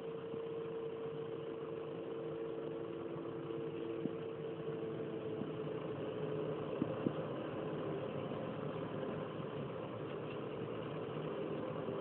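Claas Jaguar forage harvester running steadily while chopping maize: a continuous machine drone with a steady whine over it and a few light clicks around the middle.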